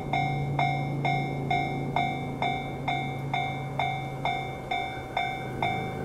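Japanese railroad crossing warning bell ringing a repeated electronic clang about twice a second, signalling that a train is approaching. A steady low hum runs beneath it.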